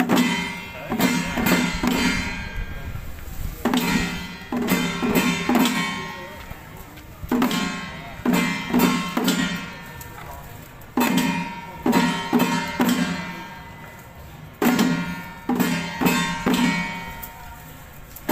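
Taiwanese temple ritual-troupe percussion: drum and clanging metal strikes in a short phrase of about five quick hits that rings off, repeated roughly every four seconds.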